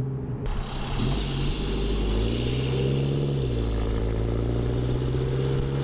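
Tuned Chevrolet Colorado 2.8-litre Duramax four-cylinder turbo-diesel with an aftermarket downpipe and exhaust, driving on light throttle: the exhaust note climbs about two seconds in, holds, then eases back to a steady cruise. Heard from outside the truck, with wind and road noise.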